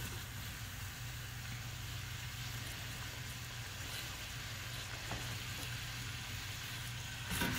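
Chopped bell pepper, onion and celery sizzling in hot olive oil in a stainless steel stock pot as the pieces are dropped in. The sizzle gets louder near the end.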